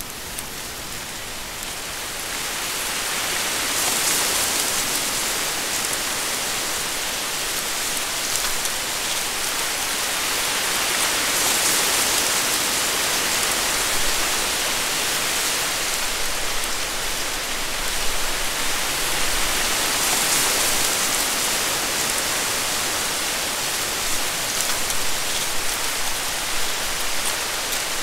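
Wind rushing through a dense stand of reeds: a steady rustling hiss that swells in gusts a few times.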